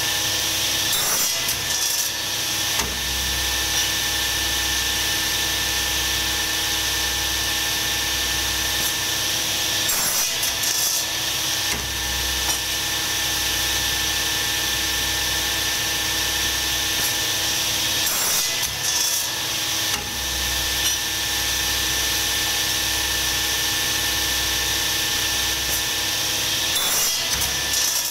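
A motor-driven workshop machine running steadily with a constant hum and a low rumble. About every eight to nine seconds its low rumble briefly drops away and a short noisy burst sounds, as if it is working through a repeating cycle.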